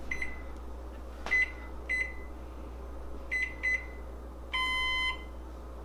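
Electronic oven control panel beeping as its buttons are pressed: five short high beeps at uneven intervals, then one longer beep of a different tone about four and a half seconds in, as the setting is entered.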